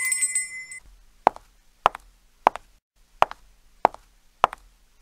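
End-screen sound effects: a rising electronic tone fades out in the first second, then six short pops follow, a little more than half a second apart.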